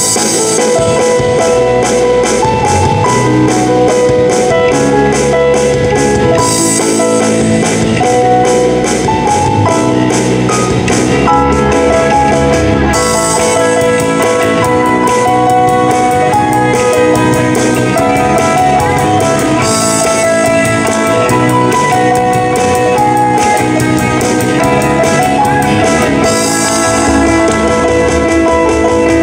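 A live band playing a pop song on keyboards and a drum kit with a steady beat, the cymbals brightening and dropping back every six or seven seconds.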